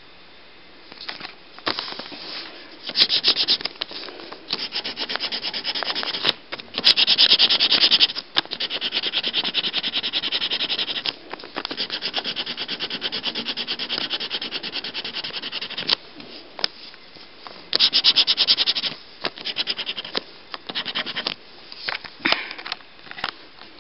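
A marker scribbling on a paper poster in fast back-and-forth strokes, in runs of one to four seconds with short breaks.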